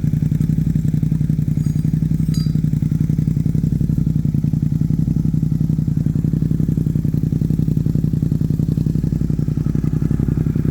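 Suzuki GSX-8S parallel-twin engine idling steadily through an Arrow full-system exhaust, an even low-pitched burble with no revving.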